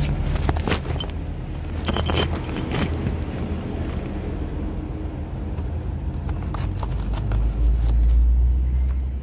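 A steady low rumble that grows louder for a second or two near the end, with a run of sharp clicks and rustles in the first three seconds.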